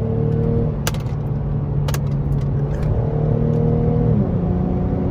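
Lexus engine through a muffler-delete axle-back exhaust, heard from inside the cabin, pulling under acceleration. Its pitch climbs slowly, then drops about four seconds in as the paddle-shifted transmission upshifts.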